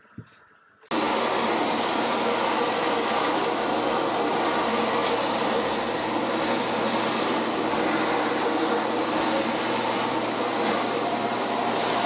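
Canister vacuum cleaner switched on about a second in, then running steadily with a high whine.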